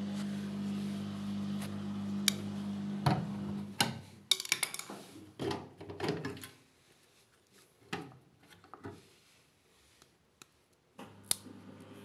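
A steady low hum that cuts off about four seconds in. It is followed by a run of sharp plastic clicks and knocks, then a few more later, as the drain-filter access cover at the bottom front of an LG front-loading washing machine is pried open.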